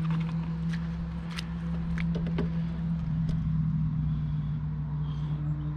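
A steady low mechanical hum, like a motor running, holds one pitch throughout, with scattered light clicks and knocks over it.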